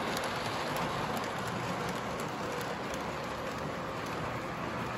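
Model train running on its track: a steady whirring noise of wheels and motor, with a few faint clicks, easing off slightly after the first second or two.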